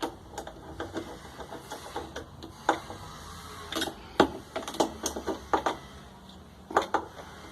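Irregular clicks and knocks of the washing machine's drive parts being handled and fitted into place by hand, the sharpest knock about four seconds in.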